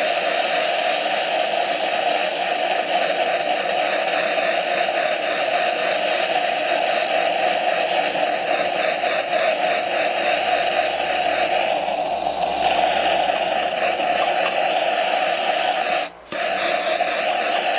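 Propane torch burning, a steady loud roaring hiss as the flame is played over the pecan to scorch the grain, with a brief break about sixteen seconds in.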